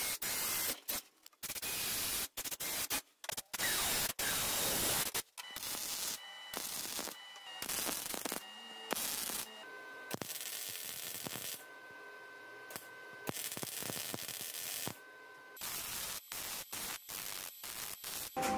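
Wire-feed welder laying plug welds: a crackling hiss that starts and stops in a run of short bursts, as the wrap of 18-gauge sheet steel is welded through drilled holes onto a steel shaft.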